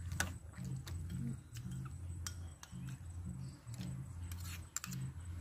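A metal ladle and spoons clinking against a stainless steel soup pot and bowls, several separate clicks. Quiet background music with a low bass line plays underneath.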